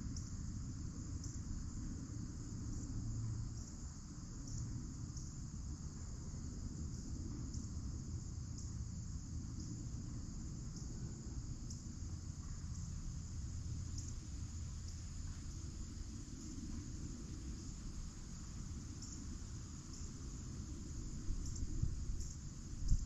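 Crickets chirping steadily, a high continuous trill with regular louder pulses, over a low steady rumble. A short louder knock comes near the end.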